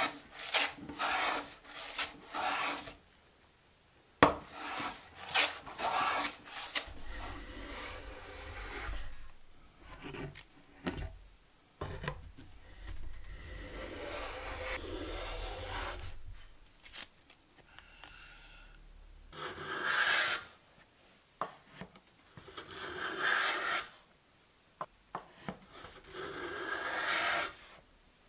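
Hand plane strokes shaving wood, each one a dry, scraping hiss. Quick short strokes come first, then longer ones, with three long strokes a few seconds apart near the end. A single sharp knock sounds about four seconds in.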